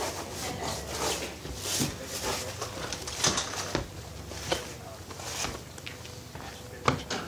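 Footsteps crunching on a gravel path at a walking pace, about two steps a second with a few pauses.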